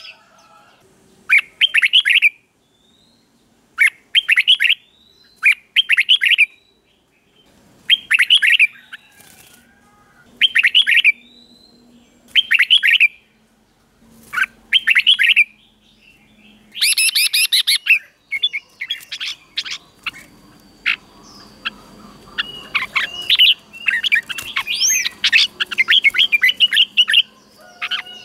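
Red-whiskered bulbul singing short, bright warbling phrases, one every second or two. From about halfway on, it turns into a faster, busier stretch of song with many quick notes.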